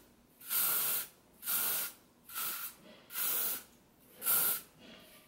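Aerosol hairspray can sprayed in five short hissing bursts, each about half a second long, with brief pauses between them.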